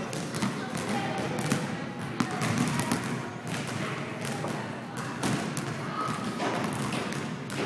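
Basketball dribbled on a hard gym floor: repeated bounces landing as sharp thuds, with a break while the ball is shot at the hoop.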